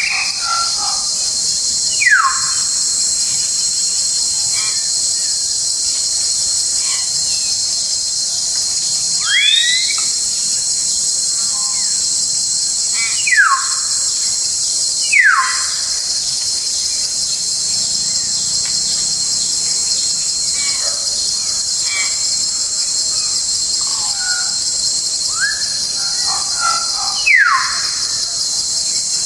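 Forest ambience: a steady high-pitched drone of crickets or cicadas, over which a bird gives a loud, short whistle sweeping downward in pitch every few seconds, about five times, with softer chirps from other birds in between.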